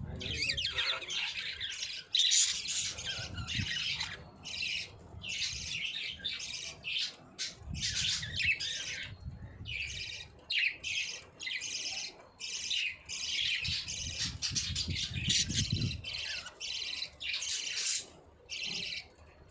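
Budgies (budgerigars) chattering and warbling almost without pause, in rapid twittering runs broken by short gaps, with occasional harsher squawks.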